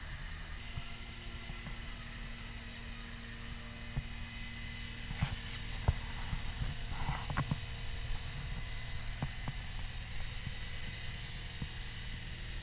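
CAT 242D skid steer loader's diesel engine running steadily with a constant hum. A few sharp clicks and knocks come through in the middle.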